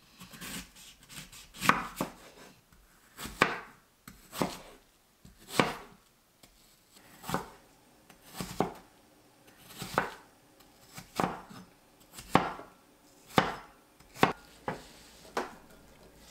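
Peeled apples being chopped with a cleaver on a wooden cutting board: separate knife strikes against the board, about one a second.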